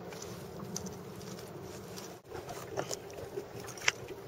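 Water sloshing against a kayak's hull, with a few light knocks and clicks.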